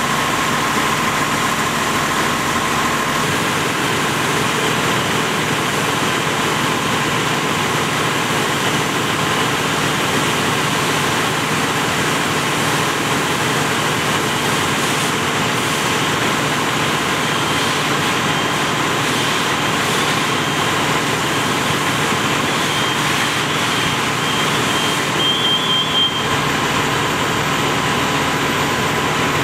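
Fire engine running steadily to pump water, with the hiss of a hose stream spraying a burning car. Late on, a short run of high-pitched beeps.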